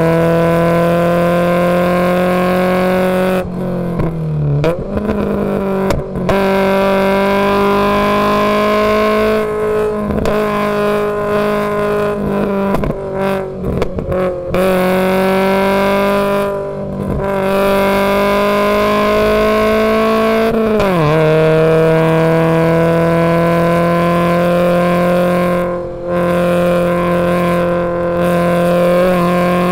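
Race car engine at high revs heard from inside the stripped cabin, its pitch climbing slowly under power and dropping suddenly several times before picking up again.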